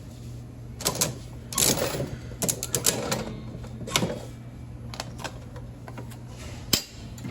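Clicking and rattling of a coin-operated prize vending machine being worked, with a cluster of rattles and clicks early on and one sharp click near the end, over a steady low hum.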